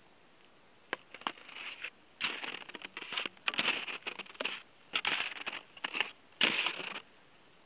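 Crunching snow underfoot: irregular crunchy steps begin about a second in, roughly one every half second to a second, and stop shortly before the end.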